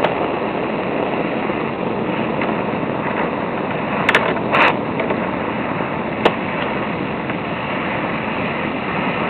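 Propane hand torch burning steadily with an even hissing flame, reheating a soldered joint on galvanized steel to remelt the acid-core solder. A few short sharp clicks come in the middle.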